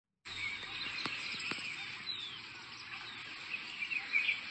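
Birds chirping over a steady hiss of outdoor background noise, starting after a brief break in the sound, with two faint clicks about a second in.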